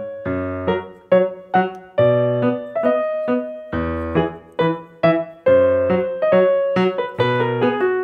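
Background keyboard music: a light piano tune of separate struck notes, each fading away, with a low bass note under many of them.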